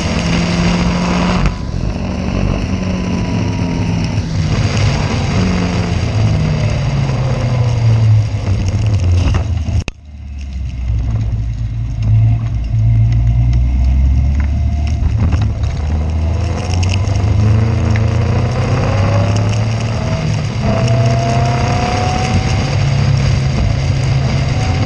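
Caterham Seven race car's engine heard onboard, its pitch rising and falling through repeated revs and gear changes. About ten seconds in, the sound drops sharply for a moment, then the engine picks up again.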